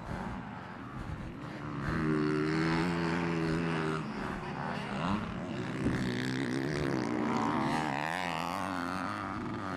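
Yamaha YZ250 two-stroke motocross engine running, growing louder about two seconds in, then revving up and down with a wavering pitch.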